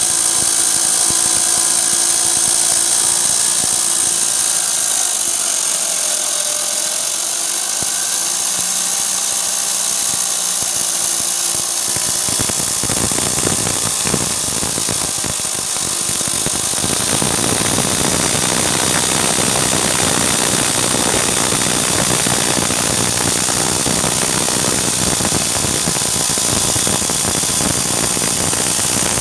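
Homemade electric wood saw driven by a washing-machine motor, running with a steady whine. About twelve seconds in the sound turns rougher and noisier and stays that way.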